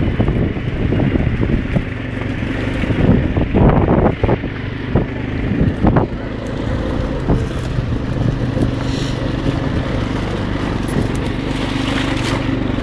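ATV engine running under load, with several sharp knocks and thumps in the first half as the machine works through mud; after that the engine runs evenly.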